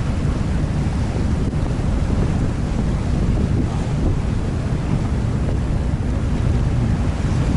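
Steady wind blowing over the microphone aboard the moving Star Ferry, with the wash of harbour water under it.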